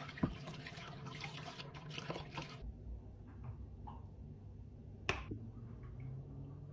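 Water splashing and sloshing as raw chicken thighs are rubbed and rinsed by hand in a plastic basin of lukewarm water, stopping abruptly about two and a half seconds in. About five seconds in, a single finger snap.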